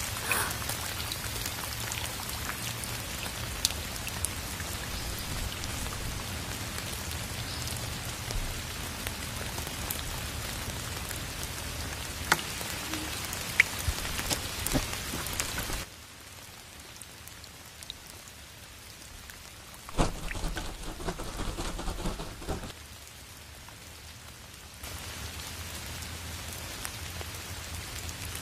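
Steady rain ambience with scattered drips and taps. It drops much quieter a little past halfway, has a short busier stretch, then returns to the earlier level near the end.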